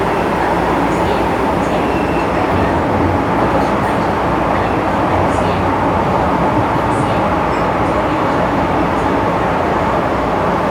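MTR Tsuen Wan line M-train running at speed, heard inside the carriage: a steady, loud rumbling rush of wheels on rail, with a few faint ticks.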